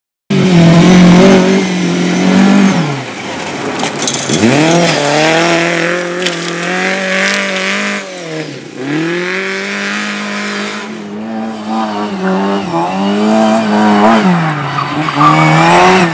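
Rally car engine revving hard under load, its note rising and falling with the throttle. It drops sharply and climbs again twice, about four seconds in and about eight and a half seconds in, with tyre squeal over it.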